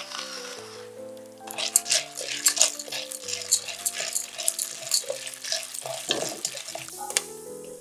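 Unpopped popcorn kernels sizzling in hot oil and clicking against a nonstick pot as a wooden spoon stirs them, starting about a second and a half in. Background music plays under it.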